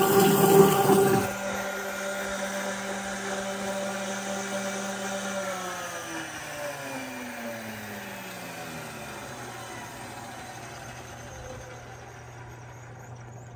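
Eberbach Model 8017 explosion-proof blender running with water churning loudly in its stainless steel jar, the churning falling away just over a second in while the motor keeps a steady whine. About five seconds in the motor is switched off and spins down, its whine falling in pitch over several seconds, leaving a low steady hum.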